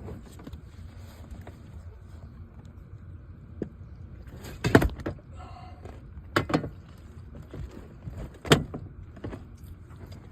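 Knocks and thumps in a boat: three loud, sharp ones about two seconds apart, over a steady low background.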